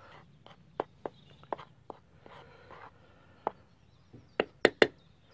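A utensil stirring dry flour in a bowl: soft scraping through the flour broken by sharp clicks and knocks against the bowl, with three quick knocks near the end.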